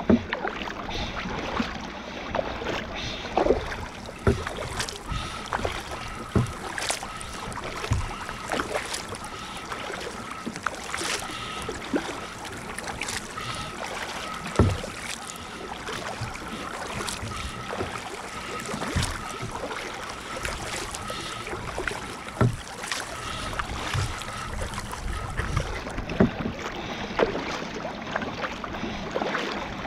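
Sea kayak being paddled through choppy water: repeated paddle splashes and water slapping the hull, over steady wind rushing on the microphone.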